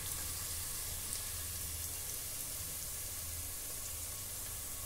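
Hot cooking oil sizzling steadily around fried onion slices in a pressure cooker.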